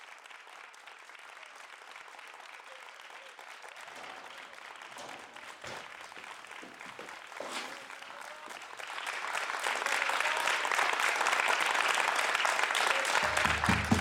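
Studio audience applauding, faint at first and swelling louder about two-thirds of the way through. Music begins under it near the end.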